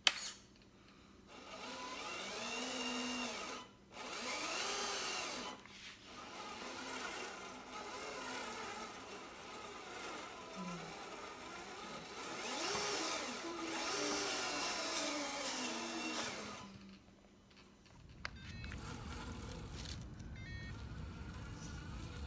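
Scale RC truck's 550 35-turn brushed motor and gearbox, in high gear with the diff locked, running with the wheels spinning in the air. It is throttled up and down in bursts, so its whine rises and falls in pitch. About 18 s in it gives way to a steady low noise.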